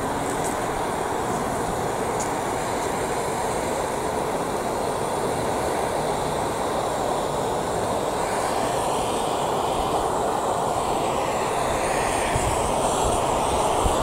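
Handheld gas blowtorch burning at full flame, a steady rushing hiss that grows slightly louder in the second half.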